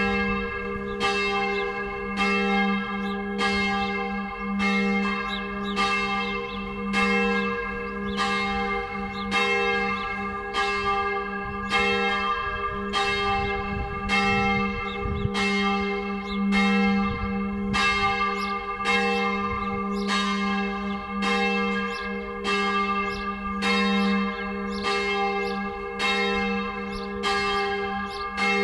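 A four-bell church peal in G-flat ringing all together for noon, the bells swung in the Tyrolean manner. The strikes come one to two a second and overlap over a steady deep hum.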